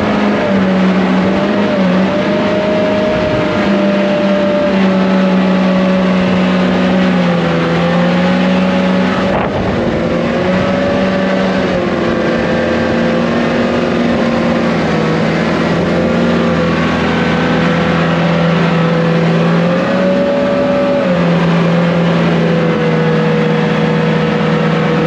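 Toyota 1UZ-FE V8 in a jet boat running hard at steady high revs, its pitch wavering slightly up and down. It tops out around 3,100 RPM at full throttle, which the crew put down to an oversized jet unit impeller.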